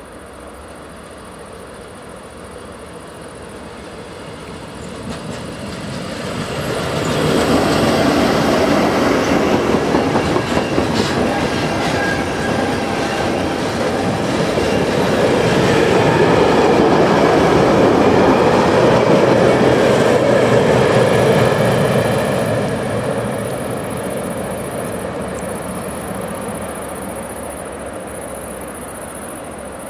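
SBB Re 4/4 electric locomotive and a freight train of Swiss Post container wagons rolling past on the Gotthard line. The sound builds over the first seven seconds, stays loud for about fifteen seconds as the wagons go by, then slowly fades as the train draws away.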